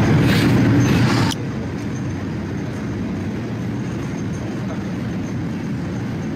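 A vehicle running with a steady low rumble, after a louder, noisier stretch that cuts off abruptly about a second in.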